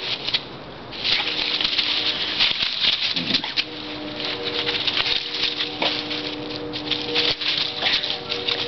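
Dry fallen leaves rustling and crackling under two dogs' feet as a big dog scuffles with and chases a tiny dog, in dense quick bursts of patter.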